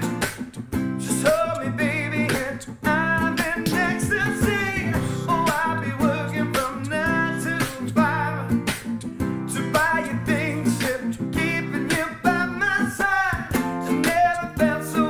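Live acoustic trio music: a male lead vocal singing over a strummed nylon-string classical guitar, with a steady percussive beat.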